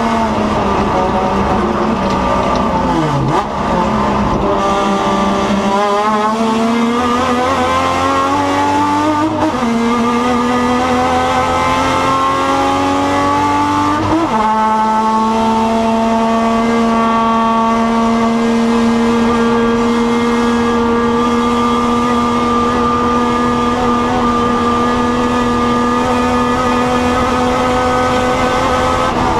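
Racing touring car engine heard from on board. It drops in pitch about three seconds in, then accelerates with its note climbing through a gear change near ten seconds, steps up sharply around fourteen seconds, and holds a steady note for the second half.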